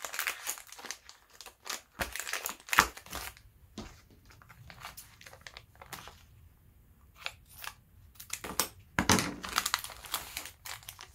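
Foil anti-static parts bags crinkling and rustling as they are handled, in bursts of crackle. In a quieter stretch midway there are a few faint snips while one bag is cut open with scissors, then louder crinkling as the opened bag is pulled apart near the end.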